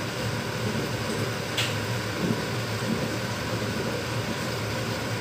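A metal spoon stirring chopped meat in an aluminium pot, with one sharp clink of spoon on metal about one and a half seconds in, over a steady low hum.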